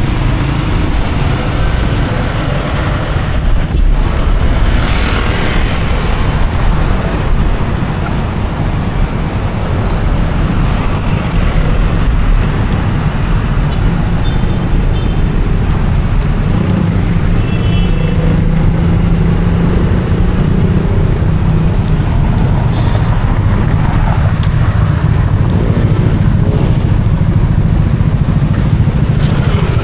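Busy city street traffic: cars and motorcycles passing with engines running over a steady low rumble, one engine rising in pitch near the middle, and a couple of short high tones in between.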